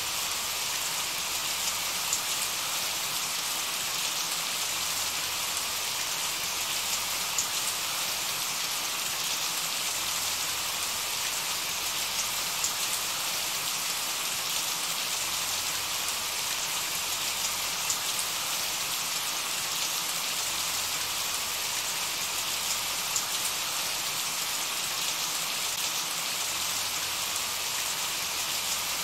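Steady rain falling: an even hiss of many drops, with occasional sharper single drop taps standing out.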